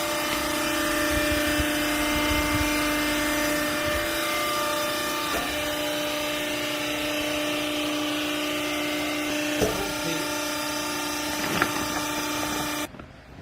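Garment baler's hydraulic pump motor running with a steady whine and hum, with a couple of short knocks late on. It cuts off suddenly near the end.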